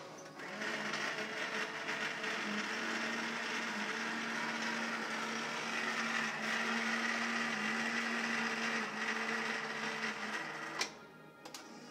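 Electric motor of a CWS automatic self-cleaning toilet seat running steadily as the seat rotates through the cleaning arm, a steady mechanical hum that cuts off near the end with a click.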